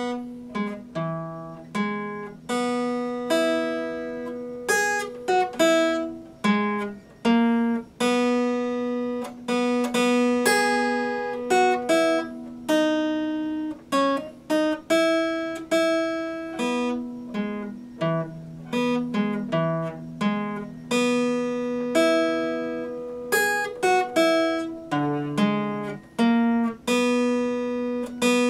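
Epiphone acoustic guitar strummed by hand: ringing chords struck one after another, changing every second or two.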